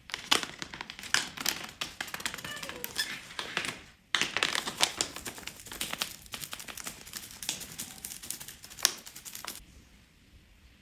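Rapid, irregular clicking and tapping of kitchen utensils against a bowl during baking preparation. The clicks break off briefly about four seconds in, then stop near the end.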